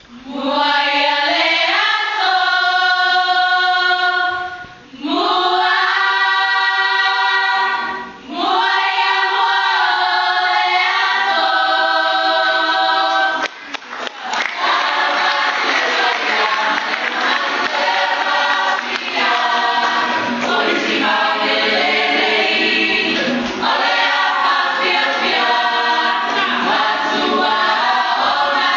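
A Samoan group singing together in harmony. The first half is long held chords in three phrases with brief breaks between them. From about halfway through, the singing turns fuller and busier, with a more rhythmic feel.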